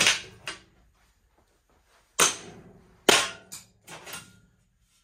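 Sharp metal bangs and clatter, about half a dozen strikes in a few seconds, loudest near the start and around the middle: the sheet-metal bottom trim strip of a 1951 Vendo 39 Coke machine being forced and torn loose from its screws.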